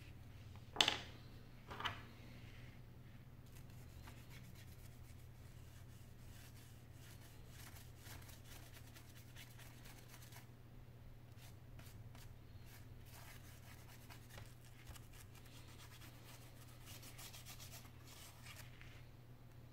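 Faint scratching and rubbing of a small brush and a small hand tool worked along the edge of a Samsung N8000 tablet's frame as it is cleaned, with two sharp taps about a second and two seconds in.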